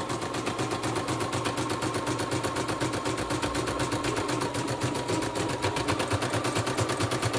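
CNY E960 portable computerized embroidery machine stitching at high speed, about 650 stitches a minute: a fast, even needle clatter of roughly ten strokes a second with a faint motor whine. It runs smoothly, without knocking or stalling.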